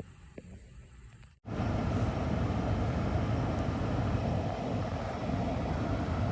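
Steady rushing noise of an aircraft's engines, starting abruptly about a second and a half in after a brief quiet stretch with a few light clicks.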